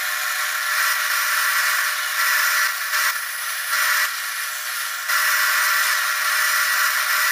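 Homemade disc sander running with a small wooden piece pressed against its spinning sanding disc: a steady motor whine under a loud hissing grind of abrasive on wood, swelling and easing several times as the piece is worked against the disc.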